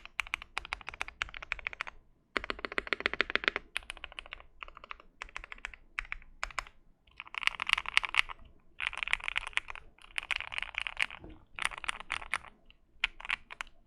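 Modded Keychron Q1 mechanical keyboard, with an FR4 plate and lubed Gateron Milky Yellow Pro linear switches, being typed on fast: runs of rapid keystrokes broken by short pauses, with no spring ping.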